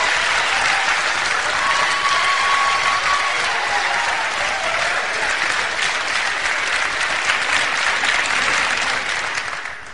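Studio audience applauding, a dense clapping that fades away near the end.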